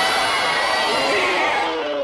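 Baby Godzilla's cry, a kaiju film sound effect: a long, loud, layered squealing call whose pitch slides downward toward the end.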